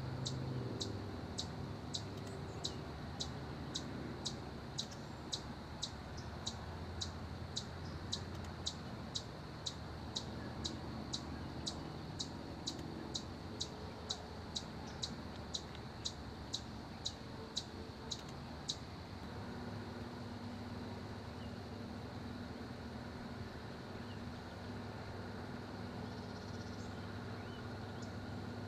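A small animal's sharp, high chip, repeated steadily about twice a second, stopping about 19 seconds in, over a low steady hum.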